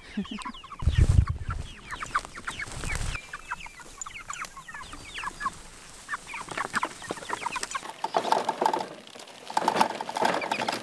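A flock of seven-week-old meat chickens calling with many short, high, falling peeps and clucks. A low rumble runs for about two seconds near the start.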